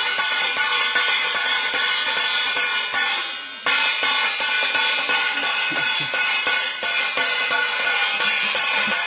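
Metal thalis and bells being beaten and rung together in a fast, steady clatter of strikes with a ringing metallic din; it dips briefly about three seconds in, then resumes abruptly at full level.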